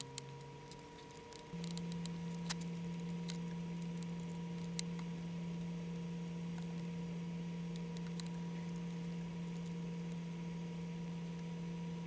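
Small sharp clicks and taps from a screwdriver and small parts being handled as screws are driven back into a partly reassembled Contax G1 camera body. A steady low hum comes in suddenly about one and a half seconds in and runs under the clicks.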